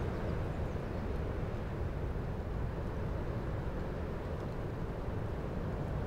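Strong wind blowing through the bare branches of a leafless birch tree, a steady rush of noise weighted toward the low end.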